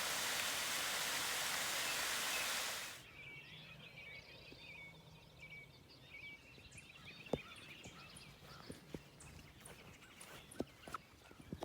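A steady rushing noise that cuts off abruptly about three seconds in. After it, small birds chirp and there are scattered footfalls on the trail.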